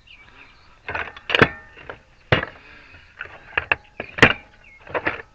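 Metal hand tools clanking as they are moved around on a workbench: about seven sharp, irregular knocks and clanks over about four seconds, one ringing briefly.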